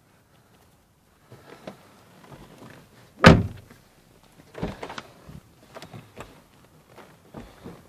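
A Peugeot 308's door shut with one loud thud about three seconds in, then a softer knock and a few small clicks and knocks of handling.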